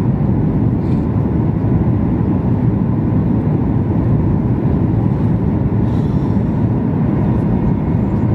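Steady cabin noise of a Boeing 737-8 MAX airliner heard from inside: a low, even rumble of engines and airflow with a faint steady whine above it.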